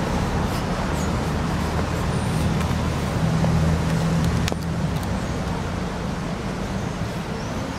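Steady rumble of road traffic, swelling briefly around three to four and a half seconds in, with a single sharp click about four and a half seconds in.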